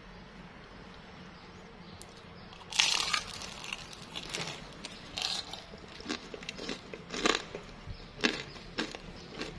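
A bite into a crispy batter-fried pumpkin fritter gives one loud crunch about three seconds in, followed by a run of shorter crunches as it is chewed; the crunch comes from the crisp fried batter crust.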